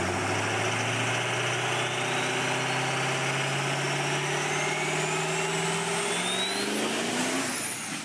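Car engine revving up, its pitch climbing steadily for about seven seconds with a thin high whine rising alongside, ending in a whoosh as it dies away.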